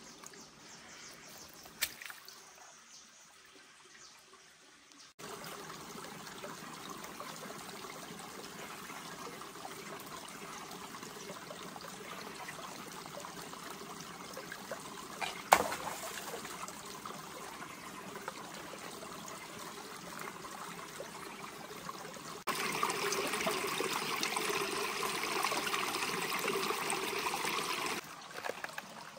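Water trickling and running in a shallow stream, coming in several sections that switch abruptly: faint at first, steadier from about five seconds in, and louder for a stretch near the end. A single sharp knock about halfway through is the loudest sound.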